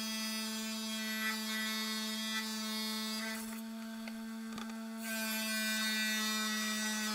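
Lapidary trim saw running with a steady pitched motor hum as its thin sintered diamond blade cuts into a septarian nodule, with a hiss of blade on stone. The hiss eases for about a second near the middle, with one sharp tick, then picks up again.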